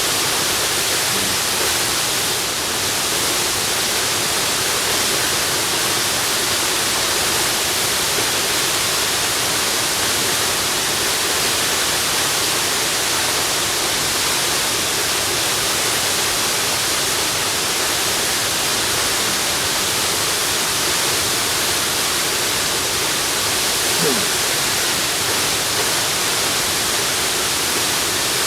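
Waterfall: a steady, even rush of falling water that does not let up.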